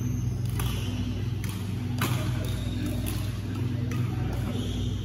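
Badminton rackets striking a shuttlecock: several sharp cracks about a second apart, over a steady low hum.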